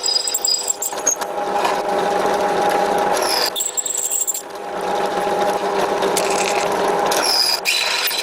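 Cheap bench drill press running and drilling into metal, its motor giving a steady hum under the scratchy cutting noise, with a few short high squeals. The cutting eases off about four seconds in and then builds up again.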